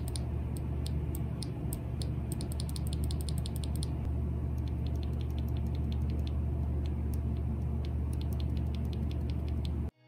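A single Akko CS Rose Red linear keyboard switch pressed and released rapidly between the fingers, giving a quick run of small plastic clicks over a steady low hum. It starts as a stock unlubed switch, and partway through changes to one lubed with Krytox 205g0, whose clicks carry less of the sharp high top.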